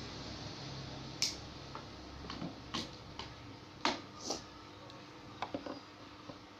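Irregular light clicks and knocks, about eight spread over a few seconds, as of objects being handled, over a steady faint hiss.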